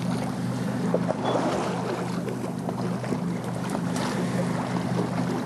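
Steady low mechanical hum aboard a fishing boat, with wind and water noise around it.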